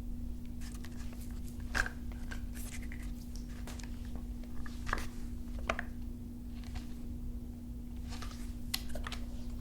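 Ruger 10/22 rifle being handled: a string of irregular clicks and light knocks from its parts, the loudest about two seconds in and about five seconds in.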